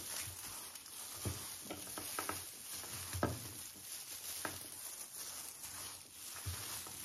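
A plastic-gloved hand tossing and squeezing a shredded vegetable salad (singju) on a banana leaf: crackly rustling in short, irregular handfuls, the loudest about three seconds in.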